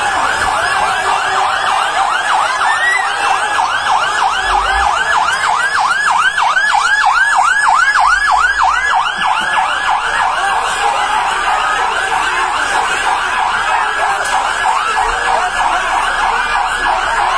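Fire engine siren on a fast yelp: a rapid rising-and-falling wail, about five cycles a second, loudest midway and weakening near the end.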